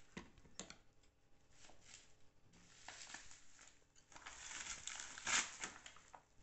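Faint rustling and handling noises: a couple of short scrapes in the first second, then a longer rustle that builds to its loudest a little after five seconds in.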